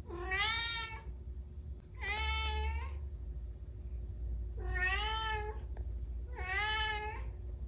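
Kitten meowing four times, each meow about a second long and evenly spaced, each rising and then falling slightly in pitch.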